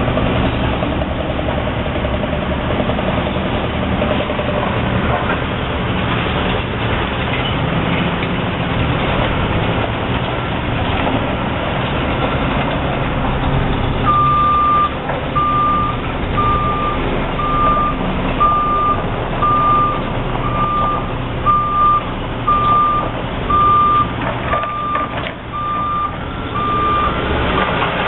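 Heavy construction machinery running, with a backup alarm starting about halfway through and then beeping steadily about once a second.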